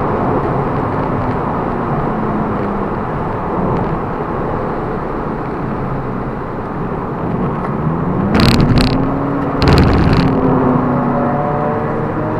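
Inside the cabin of a ZVW30 Toyota Prius race car on the move: its 2ZR-FXE 1.8-litre four-cylinder engine running under steady road and tyre noise, the engine pitch climbing from about eight seconds in. Loud jolts or rattles come twice, at about eight and a half and ten seconds in.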